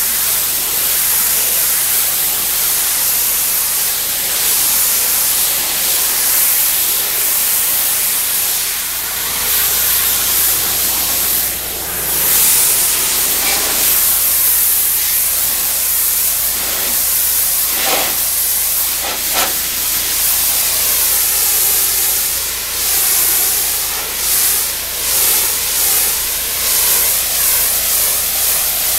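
High-pressure water jet from a pressure-washer wand hissing steadily as it blasts spray paint off a concrete sidewalk. The level wavers as the jet is swept across the slab, dipping briefly about twelve seconds in.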